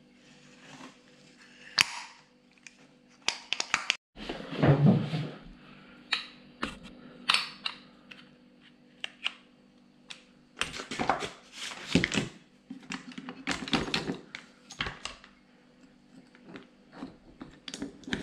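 Metal parts of a diesel car's starter motor being handled: irregular clicks, knocks and short scrapes as the drive-end housing and its planetary reduction gears are turned and fitted together by hand, with a faint steady hum underneath.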